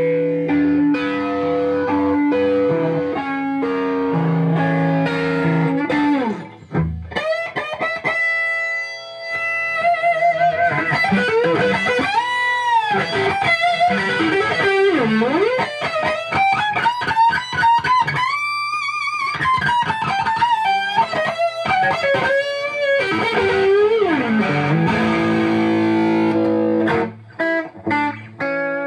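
Electric guitar through a cranked 1971 Marshall valve amp with EL34 power tubes, run at full power into an attenuator and a greenback speaker cabinet. It plays sustained overdriven chords, then several rising and falling double-stop bends, then choppier chords near the end. The bends draw out ghost notes, an extra tone that moves against the bent strings, which the player puts down to the power supply working under full load.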